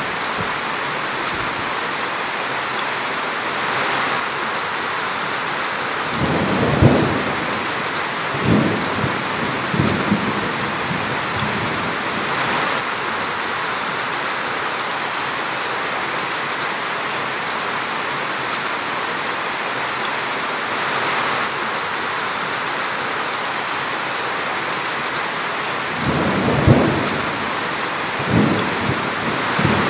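Heavy rain pouring steadily onto leaves and ground. Low thunder rumbles come through several times, in a cluster from about six to ten seconds in and again near the end.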